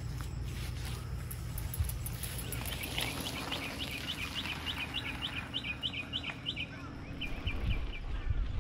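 A songbird singing a fast run of short rising notes, starting about three seconds in, then a shorter run near the end, over a low background rumble.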